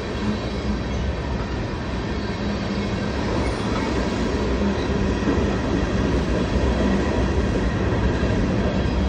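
Empty railroad tank cars of a freight train rolling past close by: a steady noise of steel wheels running on the rails.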